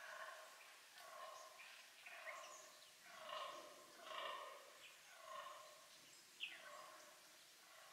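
Fallow buck croaking during the rut: faint, deep groans repeated about once a second. A sharp sweeping bird call sounds about six seconds in.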